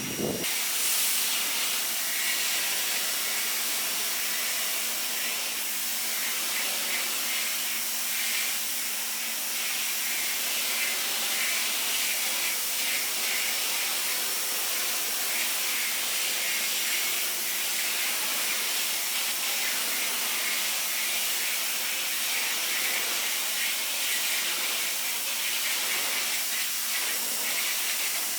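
Sun Joe SPX3000-QW2 electric pressure washer spraying a surface: a steady, loud hiss of the high-pressure water jet that starts about half a second in, with a faint steady low hum underneath.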